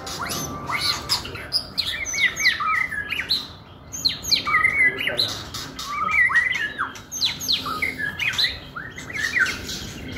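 White-rumped shama singing: a fast, varied run of short sweeping whistled notes and chirps, with a brief pause about three and a half seconds in.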